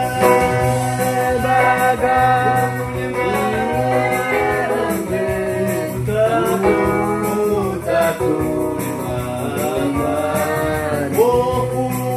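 A man singing a slow devotional song with long, gliding held notes, accompanied by an electronic keyboard playing sustained chords over a light, steady rhythm.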